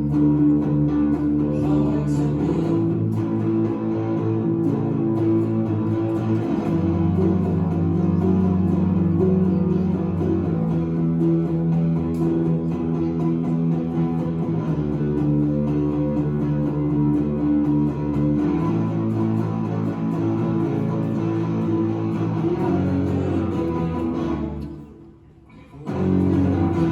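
Live band playing an instrumental guitar passage: strummed electric guitar chords over bass notes that change every few seconds. Near the end it drops out for about a second, then one last chord is struck and rings.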